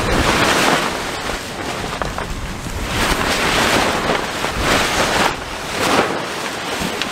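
Wind buffeting the microphone over rushing sea water as a sailing catamaran moves under spinnaker. The noise swells and eases in several surges.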